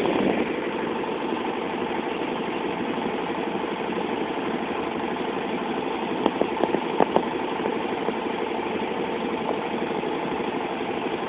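A wooden river boat's engine runs steadily under way. About six to seven seconds in, a quick cluster of sharp knocks sounds over it.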